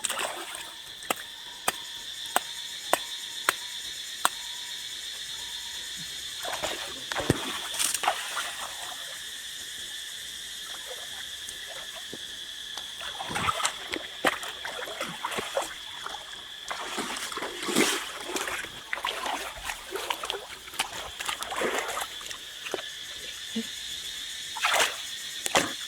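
Water splashing and sloshing in bursts as someone wades through a river and grabs at frogs, with a row of short sharp clicks in the first few seconds. A steady high-pitched insect chorus runs underneath.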